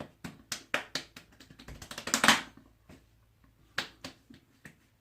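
A quick irregular run of light pats and taps, with a short rubbing swish about two seconds in: the face being patted and rubbed dry after a shave.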